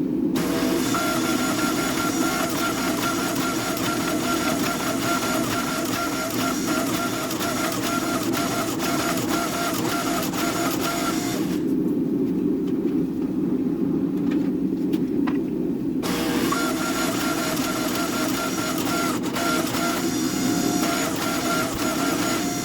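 Steady drone of a motor-driven workshop machine with a steady whine on top; the whine and the higher hiss drop out for a few seconds midway while the low drone carries on.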